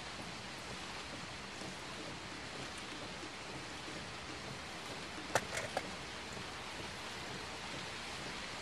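Steady rain falling on a car's roof and windows, heard from inside the car. A little past halfway, a quick cluster of three sharp clicks.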